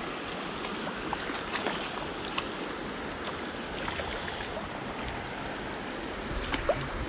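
Shallow river current running and rippling steadily, with a few faint light clicks.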